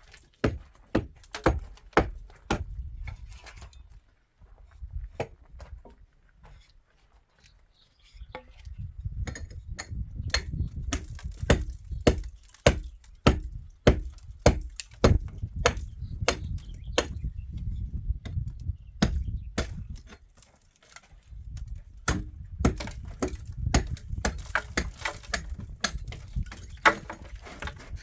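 Runs of sharp hammer strikes on wood, about one to two a second. The strikes pause for a few seconds early on and again briefly about three-quarters of the way through.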